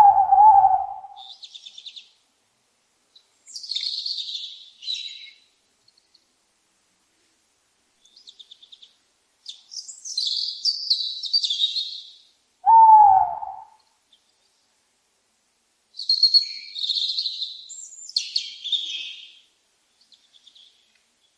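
A tawny owl calling twice, about thirteen seconds apart, each call a single slightly falling note lasting about a second. Between the owl calls, small songbirds sing in several short, high-pitched phrases.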